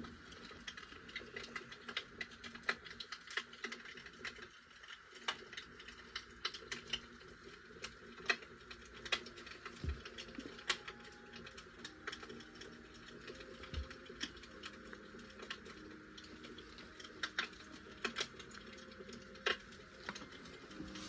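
Faint, irregular clicks and small plastic crackles from a squeeze bottle of dye being handled and squeezed over plastic wrap, over a steady faint hiss.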